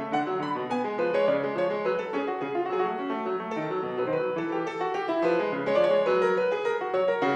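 Grand piano played solo: a classical piece moving in a steady stream of notes in more than one voice, without a pause.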